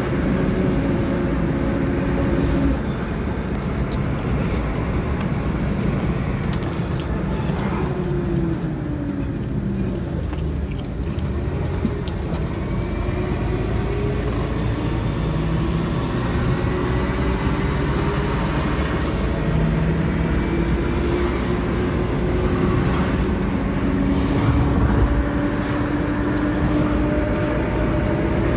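A car driving, with its engine and road noise making a steady rumble. The engine's pitch falls and then climbs again around the middle, as if slowing down and speeding back up.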